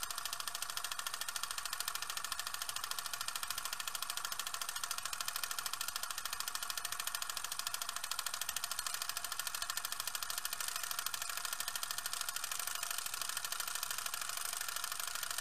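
A small motor running steadily with a fast, even pulse.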